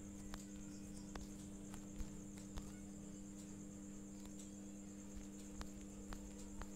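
Faint background noise with no speech: a steady low hum, a high, rapidly pulsing trill that runs throughout, and scattered small clicks.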